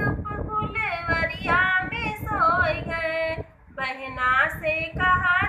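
A woman singing a North Indian folk dance song (nach ka geet) in a high voice, with one short break for breath a little past halfway.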